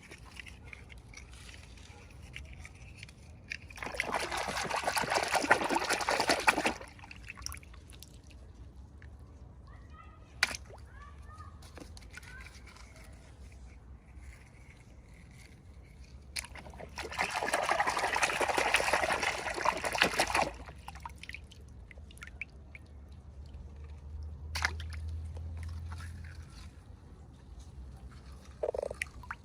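Water trickling in a thin stream, in two spells of about three seconds each: one a few seconds in and one past the middle.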